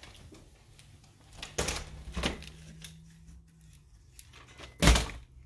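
A few light knocks and clicks of things being handled, then one sharp, louder knock about five seconds in, over a faint steady hum.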